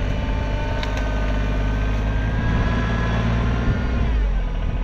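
Rural King RK24 compact tractor's diesel engine running under throttle as it reverses, the pitch creeping up slightly and then dropping about three seconds in, with a light knock about a second in.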